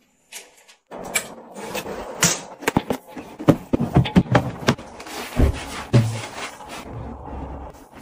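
Clear plastic wardrobe drawers being handled: a busy run of clacks, knocks and dull thuds starting about a second in, then cloth rustling as folded clothes are rummaged.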